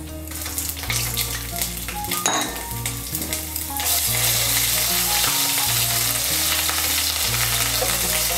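Ginger paste frying in hot oil with whole spices in a metal kadai, stirred with a wooden spatula. Scattered scraping clicks over a light sizzle give way, about four seconds in, to a loud, dense, steady sizzle as the paste hits the oil.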